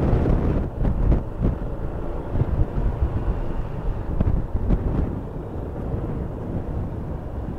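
Wind buffeting the microphone of a Yamaha XMAX 300 scooter at riding speed, in uneven gusts that are strongest early and again around four to five seconds, then ease to a steadier rush.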